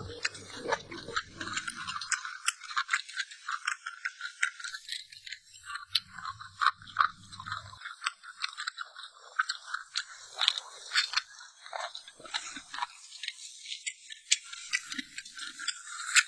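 A person chewing food, with a dense run of small crunchy, wet clicks.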